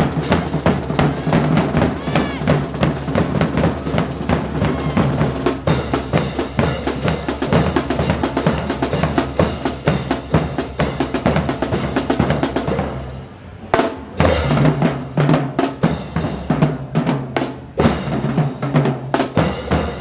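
Street drumline of snare drums, marching bass drums and crash cymbals playing a busy, continuous beat. The drumming breaks off briefly about 13 seconds in, then picks up again.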